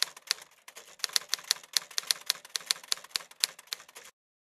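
Typing sound effect: a quick, uneven run of key clicks, several a second, that cuts off abruptly near the end into dead silence.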